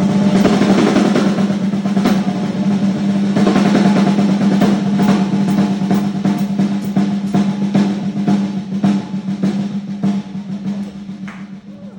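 Drum kit in a fast drum solo: rapid snare rolls and quick strikes around the kit over a steady low ringing tone. It thins out and fades over the last couple of seconds.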